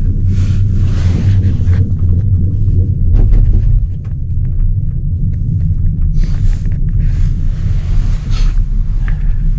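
Steady low rumble of a moving gondola lift cabin on its haul rope, with two long rushes of hiss over it. The rumble swells briefly about three seconds in, as the cabin runs over a lift tower's roller sheaves.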